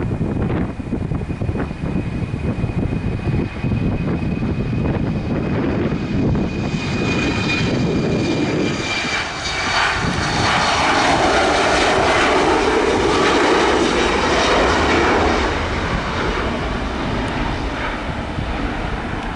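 Aircraft flying past close by: a high whine that falls slightly in pitch gives way to engine noise that swells to its loudest a little past halfway and then fades. Gusty wind rumbles on the microphone in the first few seconds.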